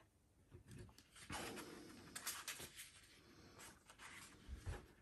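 Faint rustling and sliding of paper as a page of a printed catalogue is turned by hand, with a soft thump near the end.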